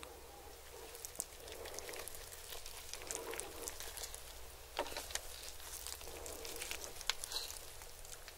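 Crisp skin of a whole roast chicken crackling as gloved hands pull a piece apart, a dense run of small sharp clicks and crackles. About midway the piece is dragged through thick cheese sauce.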